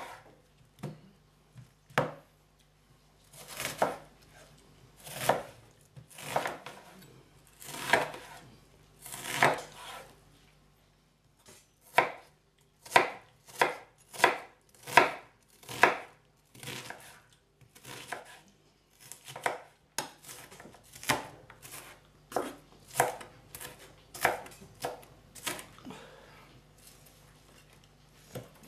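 Large kitchen knife chopping a peeled onion on a wooden cutting board. A sharp knock comes first, then slow drawn cuts about every second and a half. From about midway there is a quicker run of crisp chops, roughly one or two a second, that gets softer near the end.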